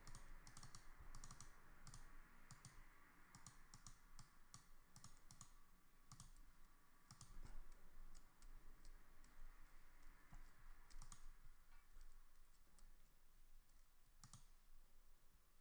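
Faint, irregular clicking from a computer mouse and keys, sometimes several clicks a second, over faint room noise.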